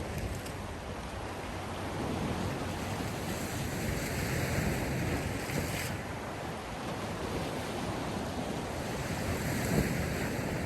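Sea surf: waves washing in and drawing back, one wash building and stopping sharply about six seconds in, another swelling near the end.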